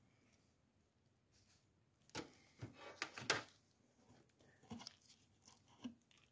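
Small handling sounds: a cluster of clicks and rustles about two seconds in, then a few fainter ones. They come from gloved hands working a plated ring free of a small metal alligator clip.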